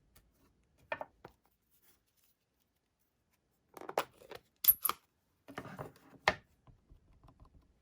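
Rubber stamp, ink pad and cardstock being handled while stamping a sentiment: soft rustles of paper and a few sharp clicks and taps, the two loudest clacks close together a little before the middle.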